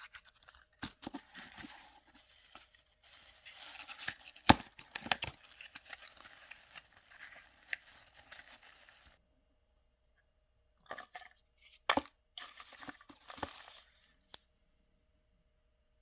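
Paper packaging being unwrapped by hand: tearing and crinkling with sharp clicks and taps, stopping about nine seconds in and starting again for a few seconds about two seconds later.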